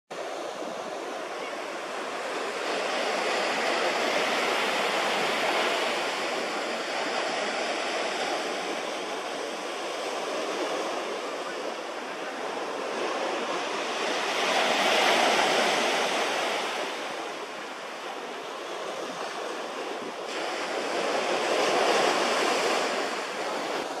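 Ocean surf breaking and washing in, swelling and fading in slow surges about every seven to ten seconds.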